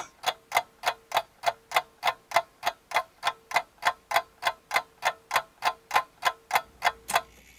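Clock ticking steadily, about three and a half ticks a second, over a faint steady tone; the ticking stops about seven seconds in.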